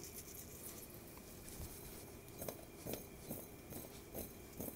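Faint handling sounds of boiled diced potatoes in a glass bowl being seasoned by hand: low room tone at first, then from about halfway a few light, irregular ticks and taps.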